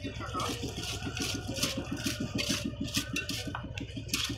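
An engine running steadily at a fast, even chug of about ten beats a second, with scattered higher scraping sounds over it.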